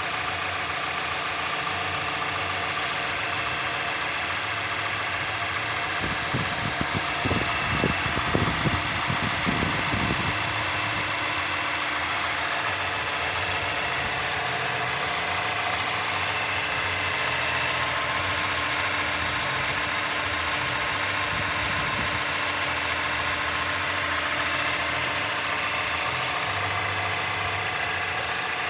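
2017 Mazda 6's 2.5 L SKYACTIV inline four-cylinder engine idling steadily just after start-up. About six to ten seconds in, a short patch of irregular low knocks sounds over the idle.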